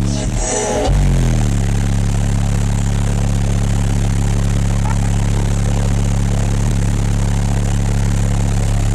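Wall of twelve 12-inch Sundown ZV4 subwoofers on 60,000 watts playing one sustained low bass tone, heavily distorted by the bass pressure. The tone breaks off just after the start and comes back in about a second in, then holds steady.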